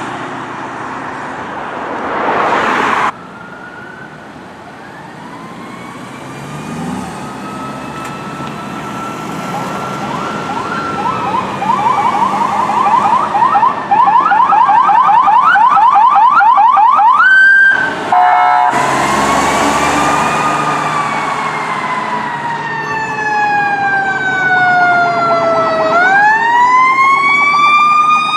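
Electronic sirens on responding police vehicles. After a vehicle passes at first, a siren winds up into a slow wail, switches to a fast yelp, then goes back to a long wail that falls and rises again.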